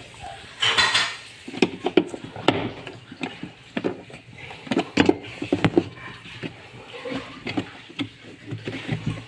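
Irregular clinks and knocks of metal tools and parts being handled, with a short scraping rustle about a second in.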